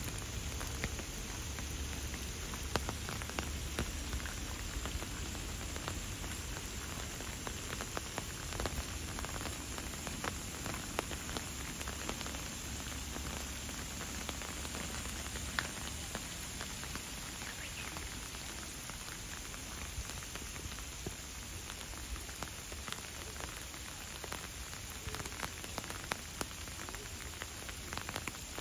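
Steady rain falling: a continuous hiss dotted with the sharp ticks of individual drops landing close by.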